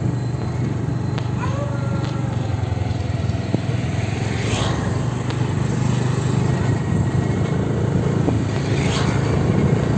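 Road traffic: motor vehicles passing close by over a steady low rumble, with one going past about four and a half seconds in and another about nine seconds in.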